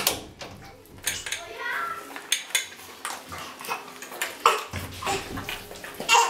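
Maltese puppies eating dry kibble from a stainless steel bowl, the metal bowl clinking and clattering irregularly as they push and nose into it.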